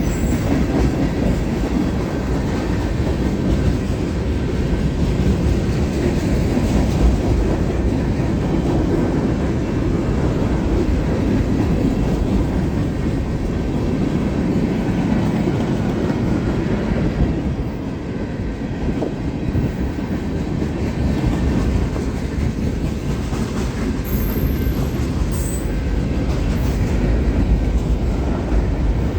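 Freight cars of a long CSX mixed freight train rolling past, their steel wheels on the rails making a steady low rumble that eases briefly about eighteen seconds in.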